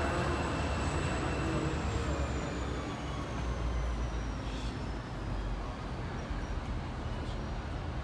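Passenger train rumbling low at the station, with a faint high whine that slowly falls in pitch over a few seconds.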